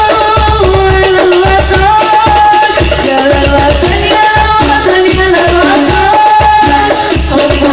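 Hadroh ensemble performing: a sung devotional melody over Indonesian rebana frame drums beating a steady rhythm.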